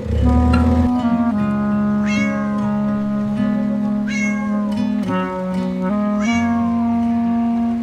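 A cat meowing, a short call that rises and falls, repeated about every two seconds over background music with held chords and a steady bass.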